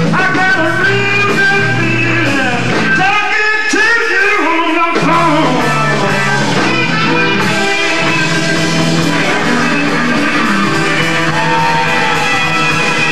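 Live rock-blues band playing with electric guitar, bass, drums and keyboards. A lead line bends up and down in pitch, and the low end drops out for about two seconds partway through before the band comes back in.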